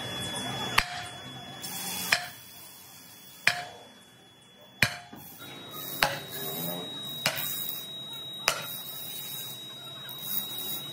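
Sledgehammer striking a scrap cast-iron brake drum, seven sharp metallic blows about a second and a quarter apart, each with a short ring, as the drum cracks and splits into pieces.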